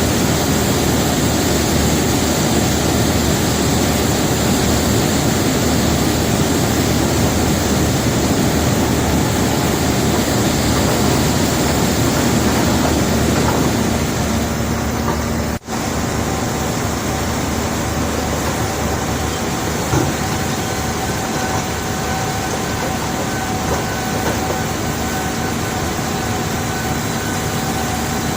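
Heavy machinery unloading a barge of cobblestones: a loud, dense rumble of noise for the first half. After a brief cut about halfway, a steadier engine hum with a few held tones takes over.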